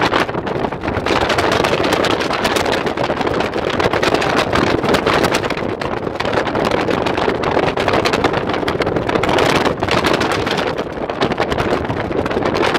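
Off-road vehicle driving fast over rough desert ground, its running noise mixed with heavy wind buffeting on the microphone and frequent small knocks and rattles.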